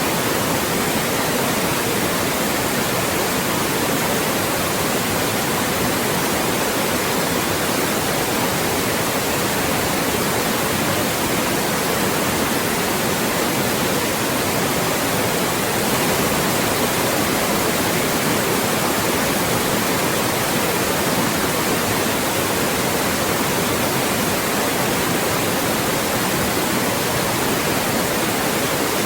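Loud, steady white noise: an even, unchanging hiss across the whole range of pitch, used as a speech blocker to mask voices.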